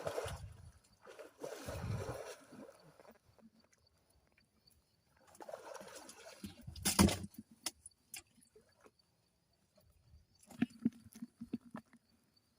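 Shallow muddy water sloshing and splashing in a few bursts as hands search through it, with one sharp knock about seven seconds in and a run of small knocks near the end.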